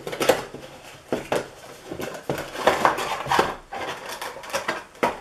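A small cardboard figure box being opened and a clear plastic blister tray pulled out of it and handled: a run of sharp clicks and taps with plastic crinkling, busiest in the middle.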